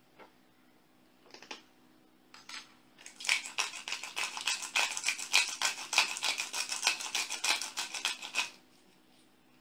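Hand pepper mill grinding pepper: a rapid, dry, ratcheting click that starts about three seconds in and stops about five and a half seconds later, after a few light knocks.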